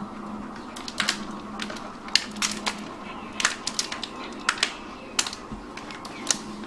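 Dogs crunching hard biscuits: irregular sharp crunches and clicks, one to three a second.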